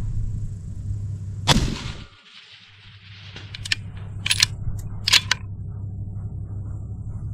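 A single rifle shot about a second and a half in. A couple of seconds later come several sharp metallic clicks, typical of a bolt-action rifle's bolt being worked to chamber the next round. A steady low rumble runs underneath.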